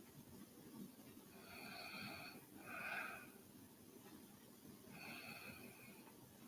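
A sleeping woman's faint, wheezy breathing through the nose or throat, with three soft breaths: one about one and a half seconds in, another straight after it, and a third about five seconds in.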